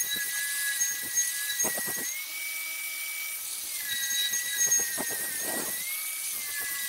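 Wire wheel on an electric grinder spinning against the steel cutter wheel of a stump grinder, scrubbing off rust and dirt with a high scratchy hiss over the motor's steady whine. The whine rises briefly a couple of seconds in and drops back about four seconds in.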